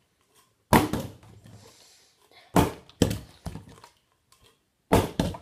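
A plastic water bottle with a little water in it hitting the floor after being flipped, three thuds about two seconds apart, each followed by a few smaller knocks as it bounces and settles.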